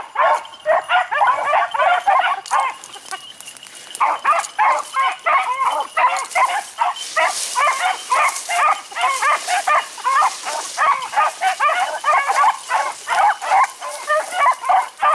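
Beagles baying as they run a rabbit's track: a steady stream of short, overlapping bays, dropping off for about a second near three seconds in, then picking up again.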